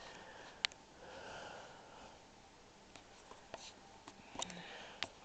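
Quiet room noise with a few faint, sharp clicks, the clearest about half a second in; no chime or bell tone sounds.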